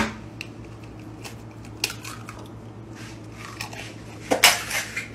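Kitchen utensils clinking: a metal knife tapping against an egg and a bowl, then a louder clatter of metal on the pan near the end, over a low steady hum.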